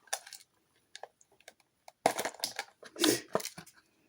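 A miniatures box being opened and its contents handled: scattered clicks and taps, with two louder bursts of rustling and scraping about two and three seconds in.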